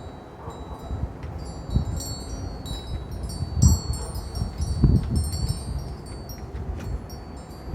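Metal parts of a folding camp cook station clinking and ringing with high, clear chime-like tones as it is unfolded and set up. A few dull thumps come in the middle of the handling.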